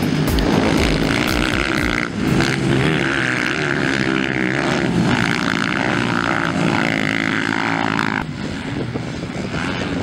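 230cc motocross bikes racing, their engines revving up and down through corners and jumps. The engine sound changes abruptly about two seconds in and again near the end.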